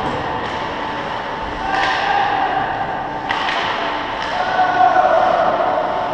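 Ice hockey play in an echoing rink: several sharp knocks and thuds of pucks and sticks hitting the boards and ice, each ringing on in the arena, over a steady hall hum. About four and a half seconds in, a voice calls out for about a second.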